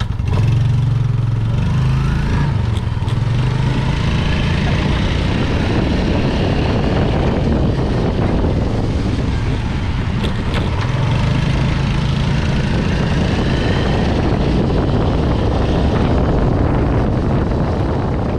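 Yamaha Sight 115's single-cylinder four-stroke engine running as the motorcycle is ridden, its note rising and falling with the throttle over a steady rushing noise.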